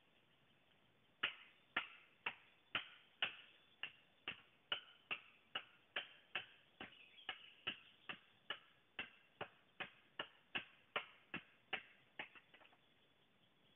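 A blade chopping at the base of a standing bamboo stem: about two dozen sharp, evenly paced strikes, a little over two a second, starting about a second in and stopping shortly before the end.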